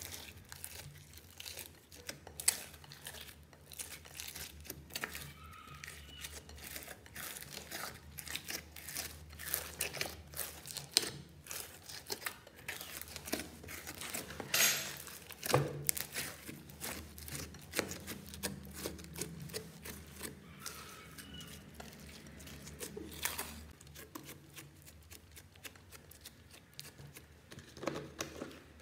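Foamy slime being squeezed and kneaded by hand in a glass dish, giving irregular wet crackles and pops as air pockets in the foam burst.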